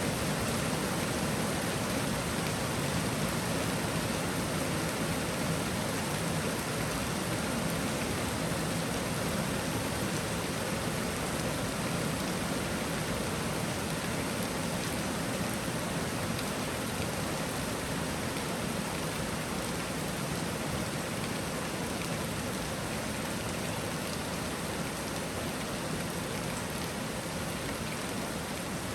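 Steady rain shower falling and pattering on surfaces, an even dense hiss.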